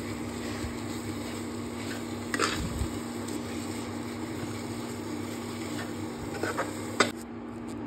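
Spatula stirring and scraping a thick semolina-and-potato dough in a frying pan on an induction cooktop, over the cooktop's steady hum. There are two sharper knocks of the spatula on the pan, about two and a half seconds in and near the end.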